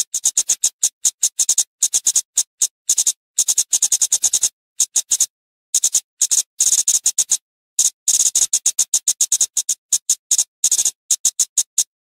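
Flowerpecker calls: rapid runs of sharp, high-pitched ticking notes in tight clusters, broken by short pauses, one of about a second just before the middle.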